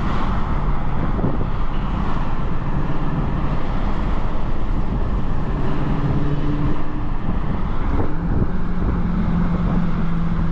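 Dodge Charger Hellcat's supercharged V8 running at a steady, light cruise in slow traffic, its low drone holding level, over a constant hiss of tyres and road noise on a wet road.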